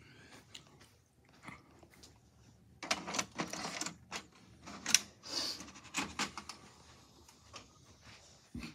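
A VHS cassette being handled and pushed into the tape slot of a VCR: a cluster of plastic clatter and clicks about three seconds in, and a sharp click just before five seconds in, with a few lighter clicks after it.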